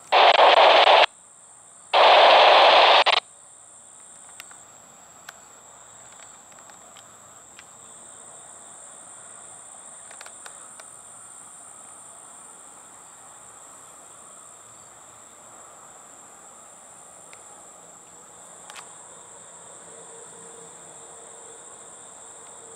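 Two loud bursts of radio static from a railroad scanner, each about a second long, a second apart. After them, insects keep up a steady high-pitched buzz.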